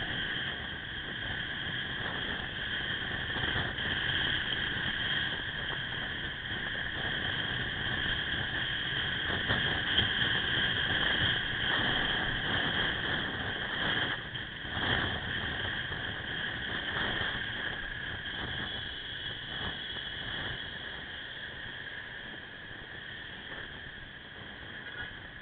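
Riding noise on a Suzuki Axelo motorcycle moving through city traffic: a steady high hiss over a low rumble, with a few brief knocks around the middle.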